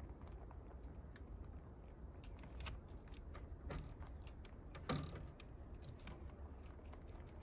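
Scattered small clicks and scrapes of rabbits shifting about on a wire-mesh hutch floor, with one louder click about five seconds in.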